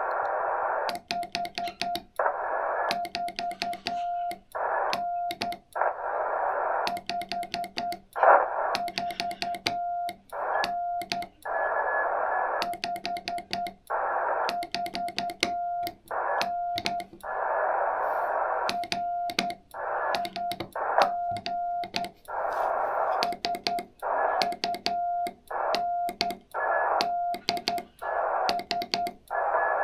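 Morse code on an amateur radio: a single steady tone keyed on and off in dots and dashes, alternating with stretches of receiver band hiss, with sharp clicks as the signal switches.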